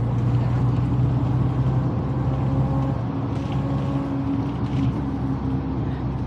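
A vehicle engine running steadily at an even pitch, heard as a low hum over road or engine noise.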